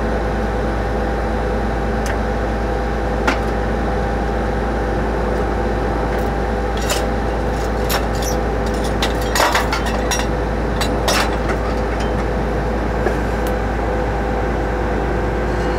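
Well drilling rig's engine running steadily, with scattered clicks and knocks from PVC well casing being handled at the rig, a short cluster of them about two-thirds of the way through.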